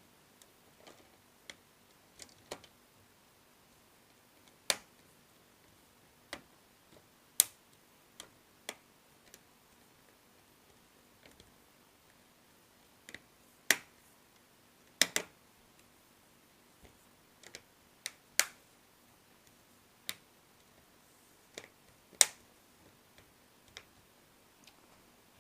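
Plastic snap fasteners of a laptop screen panel clicking into place one by one as it is pressed back on. There are sharp clicks at irregular intervals, several of them loud and a quick double click about midway.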